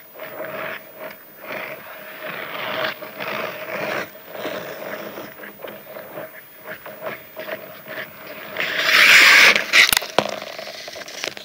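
Hockey skate blades scraping and carving across outdoor lake ice in irregular strokes, with occasional knocks. About nine seconds in, a much louder rushing noise lasts about a second, followed by a sharp click.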